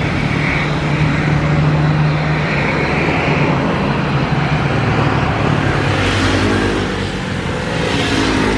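Jet engines of an Airbus A320 at takeoff thrust as it lifts off and climbs away: steady, loud jet noise with a low hum, changing in tone about six seconds in.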